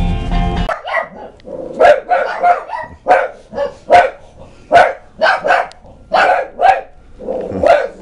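Background music cuts off under a second in, and then a dog barks repeatedly, about two barks a second.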